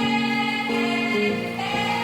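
Background music: slow sustained notes that change pitch every half second or so.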